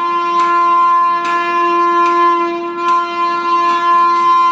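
Loud electric locomotive horn of an approaching Indian Railways express (a WAP7), held as one long steady blast.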